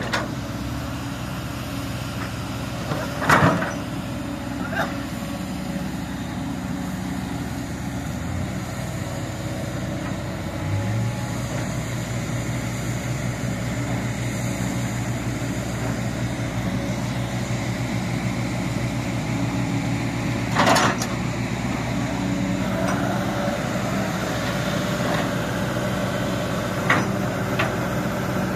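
Sumitomo crawler excavator's diesel engine running steadily, its note stepping up and growing stronger about eleven seconds in as the machine works. A few short, sharp knocks stand out, the loudest about three seconds in and another near twenty-one seconds.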